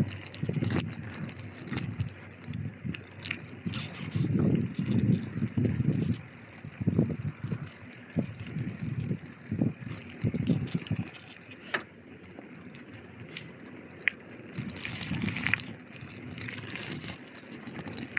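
A bicycle being ridden, heard from the rider: irregular low rumbles of wind on the microphone, with scattered clicks and rattles from the bike.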